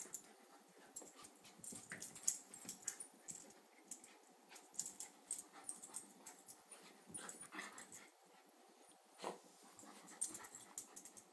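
Two small dogs playing with a rope toy, mouthing and tugging at it: quiet, irregular scuffling and clicking, with soft dog noises now and then.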